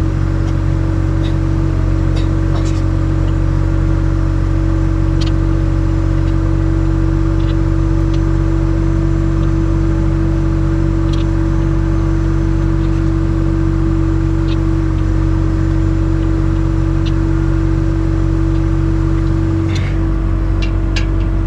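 Skid steer loader's engine idling steadily, with a few light metallic clicks scattered through it from hand tools on the table's caster-leg bolts.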